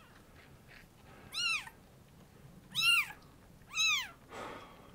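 Newborn kitten mewing: three short, high-pitched mews about a second apart, each rising and then falling in pitch.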